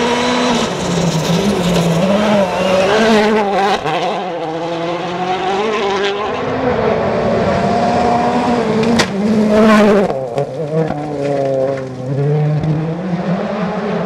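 World Rally cars at full speed on gravel, first a Citroën DS3 WRC and then a Ford Fiesta RS WRC, their turbocharged 1.6-litre four-cylinder engines revving hard up and down through quick gear changes. A few sharp cracks cut through.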